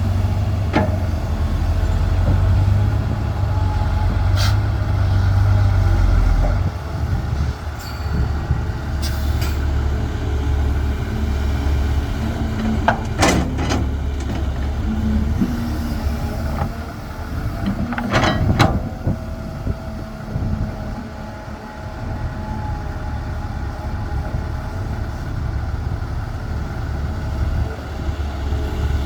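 CAT 320 hydraulic excavator's diesel engine running under working load, its low drone shifting about six seconds in. Sharp knocks come several times, around five in all.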